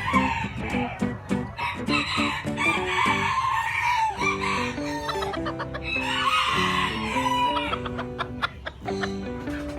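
A rooster crowing three times, long wavering calls, over background music with a steady stepped melody.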